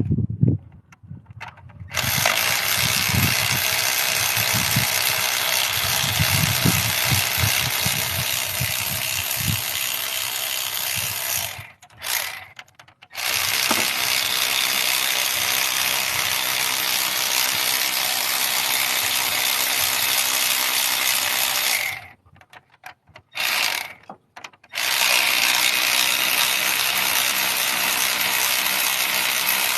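Ratchet wrench working the cylinder head bolts, a long run of fast continuous ratcheting that stops twice briefly and starts again.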